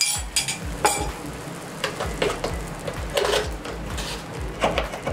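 A spoon or spatula scraping and clinking against a frying pan while a milk-and-cornflour mixture is stirred into sautéed onions over a low flame, with a light sizzle underneath. Short clinks come every second or so.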